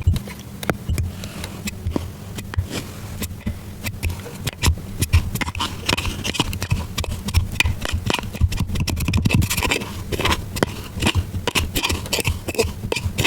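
Kinetic sand crumbling and squishing: a dense run of small crackling clicks and scrapes that grows busier from about five seconds in. A steady low hum runs underneath.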